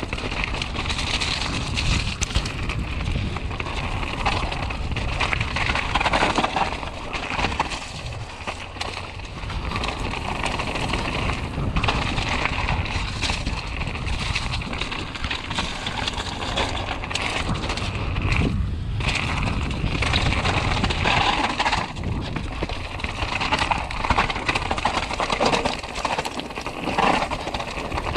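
Mountain bike riding fast down a rough gravel and dirt trail: tyres crunching over loose stones, with a constant rattle and clatter from the bike over the bumps.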